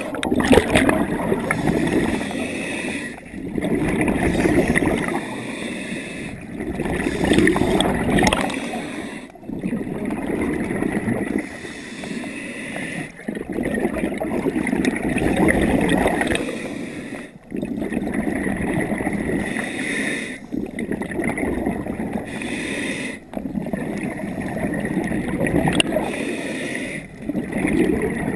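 A scuba diver breathing through a regulator underwater, heard through the camera housing: exhaled bubbles gurgle and rush in repeated breaths a few seconds long, with brief pauses between them.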